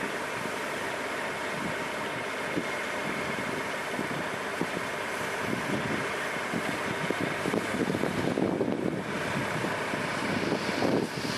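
Detroit diesel engine of a Freightliner semi running steadily while the dump trailer's bed is raised to tip its lime load. Wind buffets the microphone, growing gustier and rougher in the second half.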